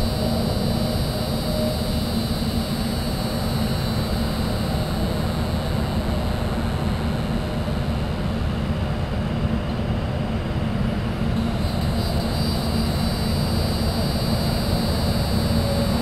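Steady low rumble of vehicle traffic, with a continuous high-pitched drone of night insects calling above it.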